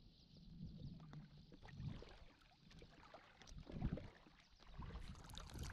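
Faint water lapping and sloshing around a float tube, with uneven low rumbles and a few small clicks of tackle being handled, and one louder low thump about four seconds in.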